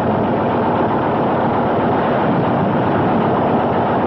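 Steady, unbroken engine noise of aircraft in flight, with no distinct shots or blasts.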